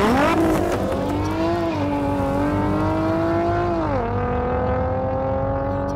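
A car engine revs up sharply, then pulls hard with its pitch climbing slowly. About four seconds in the pitch drops suddenly, then climbs gently again.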